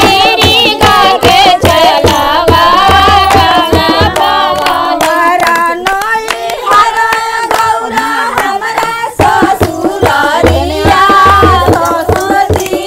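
A women's group singing a Bhojpuri Shiv charcha devotional song together, with steady rhythmic hand-clapping. A low drum beat comes in the first few seconds, drops out mid-way under a longer held note, and returns near the end.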